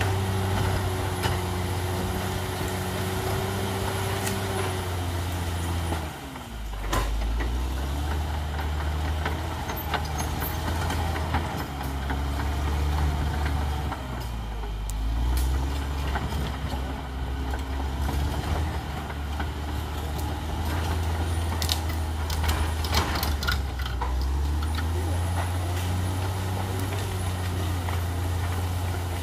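Caterpillar D6R XL bulldozer's diesel engine running hard, its pitch dipping and recovering twice as it takes load, with a series of sharp knocks in the last third.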